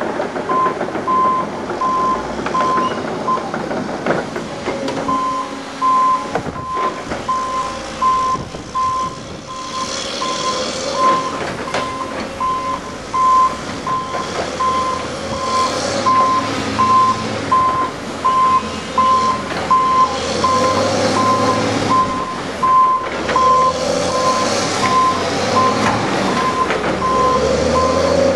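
Reversing alarm on earthmoving plant beeping steadily at one pitch, about one and a half beeps a second, with a short break about three seconds in, over the diesel engines of a dump truck and a tracked excavator working.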